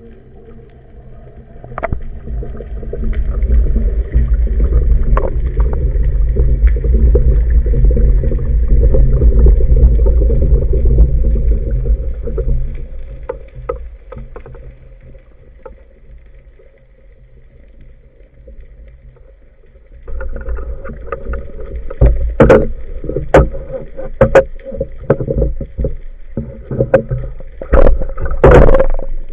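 A motorboat under way: an engine hum with a heavy low rumble of wind and water that swells, fades out around the middle, then comes back choppy with repeated sharp knocks and slaps.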